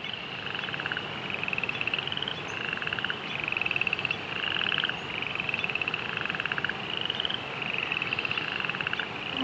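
A chorus of frogs croaking, with pulsed calls about a second long. Two voices take turns, one higher and slightly rising, one lower and shorter.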